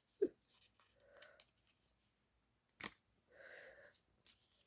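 Faint handling of album packaging and cards: a few light clicks and a soft rustle.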